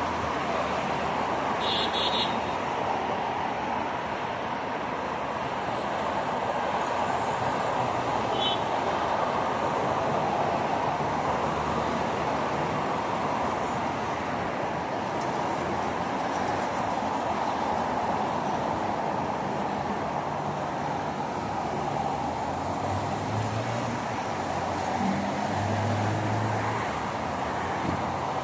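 Steady road traffic noise: cars passing continuously along a multi-lane city ring road, their tyres and engines blending into a constant rush. A brief high chirp sounds about two seconds in.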